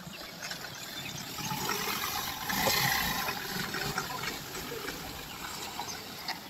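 A Mahindra Bolero Neo SUV driving past, its engine and tyre-on-road noise a rushing hiss that swells as it comes near, about three seconds in, and fades as it pulls away.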